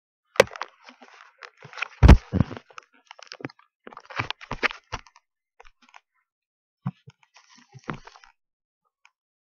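A doll being handled and set in place close to the microphone: a series of knocks, bumps and rustles. The loudest is a heavy thump about two seconds in, with more clusters near the middle and one near the end.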